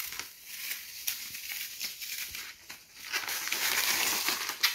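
Protective plastic film being peeled off a PEI-coated magnetic spring steel 3D printer build sheet: a stream of small crackles that thickens into a louder peeling hiss about three seconds in.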